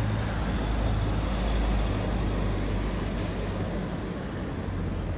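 Road traffic on a wet street: a vehicle engine's steady low hum close by, easing off in the second half, over an even hiss of street and tyre noise.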